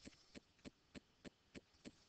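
Near silence: faint room tone with soft, regular clicks about three times a second.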